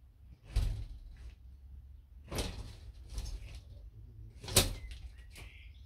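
Flemish giant rabbit scrabbling and scuffling in dry straw, a run of short rustling scrapes about a second apart, the loudest about four and a half seconds in.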